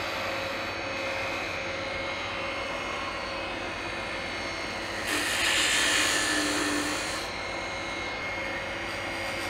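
Wood lathe running steadily with a maple blank spinning. About five seconds in, a hand-held turning tool cuts into the spinning wood for about two seconds, giving a louder hissing scrape.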